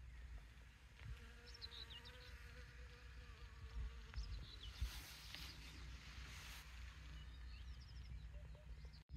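Faint buzzing of a flying insect: a thin, slightly wavering hum that fades after about three seconds, with a few short high chirps.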